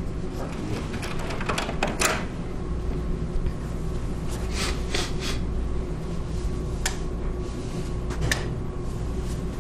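Steady low room hum, likely ventilation, with a few scattered soft clicks and knocks from a door being opened and someone stepping through it.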